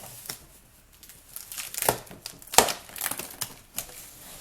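Packaging crinkling and rustling as it is handled, in irregular bursts, the loudest about two and a half seconds in.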